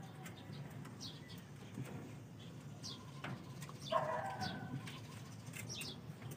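Belgian Malinois puppies whimpering: short high squeaks scattered through, and a louder whining yelp about four seconds in.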